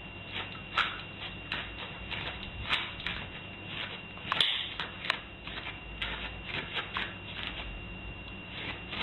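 Irregular light taps and clicks, a few a second, like small objects being handled or rummaged, over a faint steady high-pitched tone.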